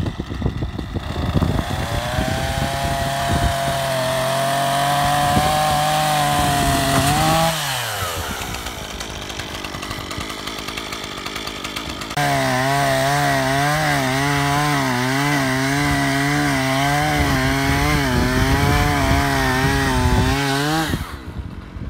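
Two-stroke petrol chainsaw running at high revs, then dropping back to idle about seven seconds in. It opens up again about twelve seconds in and cuts through a log, its pitch wavering under the load, then eases off near the end.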